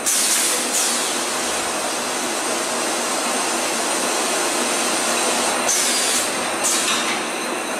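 Automatic bag packing machine running with a steady mechanical din, broken by four short, sharp hisses of compressed air from its pneumatic cylinders: two near the start and two about six seconds in, as the filled 50 kg bag is released from the spout and moved off.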